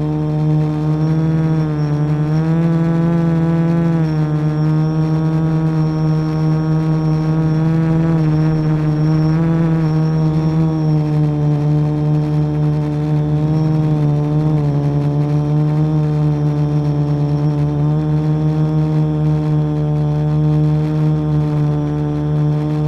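Quadcopter's electric motors and propellers running in flight, picked up by a camera mounted on the frame. A steady, loud hum whose pitch wavers and rises slightly a couple of times as the throttle changes.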